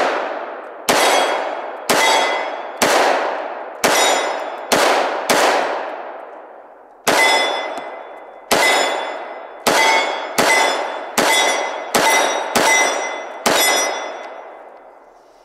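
Glock 22 (.40 S&W) pistol in a CAA MCK conversion kit firing about fifteen single shots at an uneven pace of roughly one a second, each a sharp crack with a long ringing tail.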